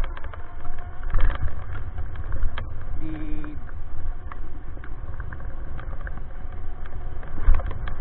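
A strong, steady low rumble with scattered short clicks and rattles, and a brief pitched tone about three seconds in.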